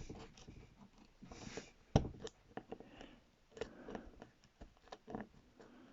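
Scattered small clicks and taps of a tablet's parts being handled and pried apart, with one sharper click about two seconds in.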